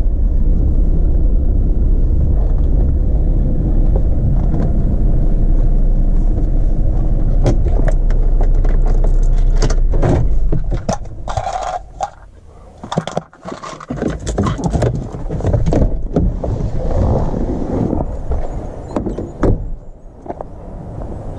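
A vehicle engine running steadily with a loud low rumble, cutting off abruptly about halfway through. After that come scattered clicks, knocks and metallic rattles.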